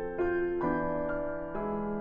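Background piano music, with notes and chords struck one after another every half second or so.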